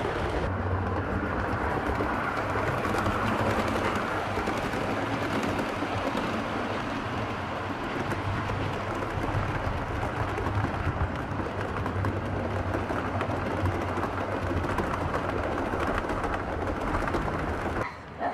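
7mm-scale model train running on the layout: a steady rattle of metal wheels on the track with a low motor hum.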